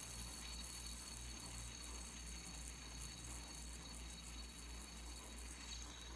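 Faint steady low hum and hiss of room tone, with no distinct events.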